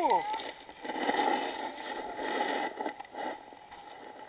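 Creek water heard through an underwater camera: a muffled, steady rush with a few light knocks and clicks.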